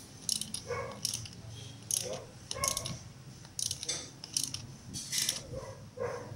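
Hand tools working on car suspension and steering parts: about ten sharp metallic clicks and clinks at uneven intervals.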